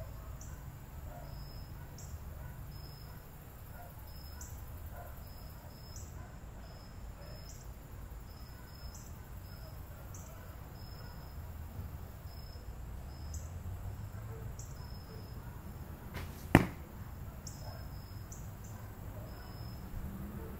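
One sharp arrow shot from a recurve bow about three-quarters of the way in, over a steady low rumble and faint, regular insect chirps.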